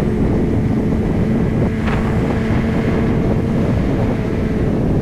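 Motorcycle cruising at a steady speed on a highway: heavy wind buffeting on the microphone over the engine's steady hum, with a brief click about two seconds in.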